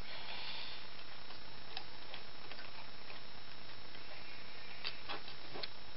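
A few light clicks of small metal parts of a window corner drive fitting being handled, one early and a small cluster near the end, over a steady hiss.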